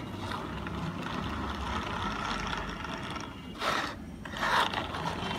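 Plastic toy bumper car pushed along a table by hand, its wheels and gears giving a steady rolling whirr. There are two short, louder rattles, about three and a half seconds in and again a second later.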